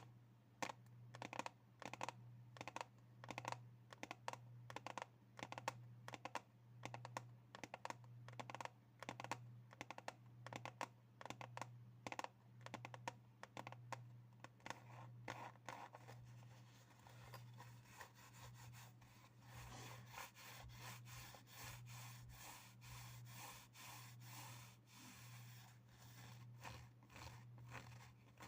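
Fingers tapping on objects in quick, irregular runs of clicks; after about 17 seconds the taps turn lighter and denser, mixed with scratching. A steady low hum runs underneath.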